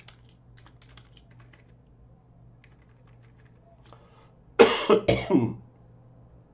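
Light computer keyboard keystrokes, then a man's short, loud burst of coughing about four and a half seconds in.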